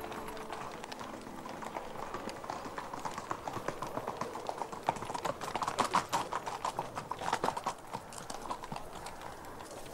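Horse hooves clip-clopping on hard ground. They grow louder toward the middle and fade near the end.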